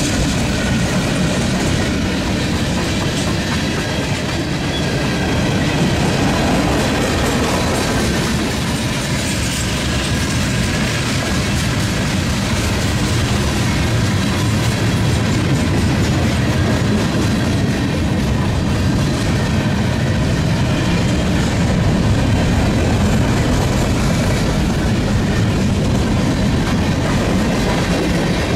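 Freight cars (boxcars, tank cars and covered hoppers) rolling past at close range: a steady rumble of steel wheels on rail with clickety-clack over the rail joints.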